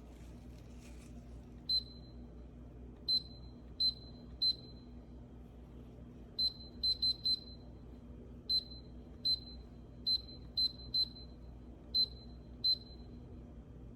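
A series of about fifteen short, high electronic beeps at uneven intervals, some in quick runs of three or four, over a faint steady low hum.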